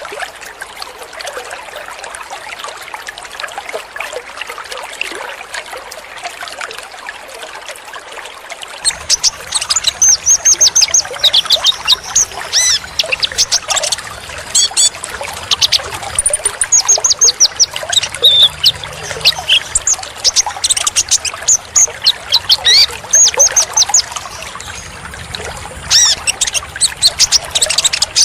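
Steady trickle of running water. From about nine seconds in, a konin (kolibri ninja) sunbird sings over it in rapid, high twittering chirps and trills, used as lure song for caged konin.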